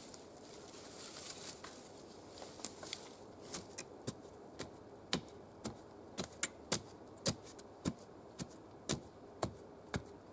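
Boots stamping and treading the soil and dry leaf litter around the base of a freshly set wooden post, packing the earth to firm it. The result is a string of sharp, irregular crunches, closer together in the second half.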